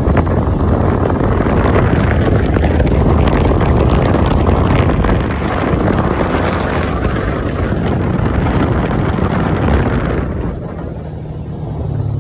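Wind buffeting the microphone from an open side-by-side off-road vehicle driving a dirt road, with its engine and tyre noise underneath. About ten seconds in the wind noise drops and the engine's low steady hum comes through more plainly.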